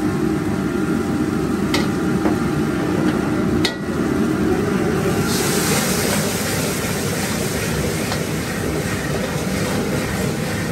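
Wok stir-frying over a high-flame gas wok burner: the burner runs with a steady roar while a metal ladle clanks against the wok a few times in the first four seconds. From about five seconds in, a loud sizzling hiss starts up as steam rises from the hot wok.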